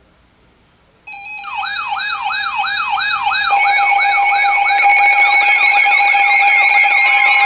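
Electronic siren and alarm tones starting suddenly about a second in: a held tone under a rising sweep that repeats about three times a second. More steady tones and sweeps join and the sound grows louder.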